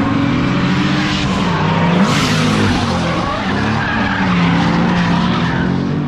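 A performance car's engine revving hard, its pitch rising and falling, while the tyres skid and screech on pavement. The tyre hiss grows louder about two seconds in.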